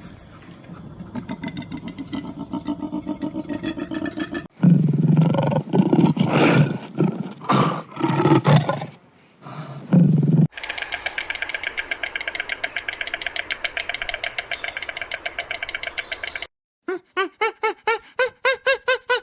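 A run of animal calls cut one after another. It starts with a rhythmic pulsing call, then comes the loudest part, loud deep roaring calls lasting about six seconds. A fast buzzing trill with high chirps follows, and near the end there are rapid, regular clicking calls.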